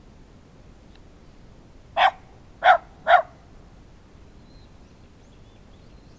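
A Shiba Inu–type dog barking three times, short sharp barks starting about two seconds in, all three within about a second and a half.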